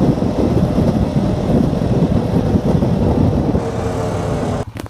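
Loud, steady rumble of a vehicle in motion, engine and road noise together, which cuts off abruptly near the end.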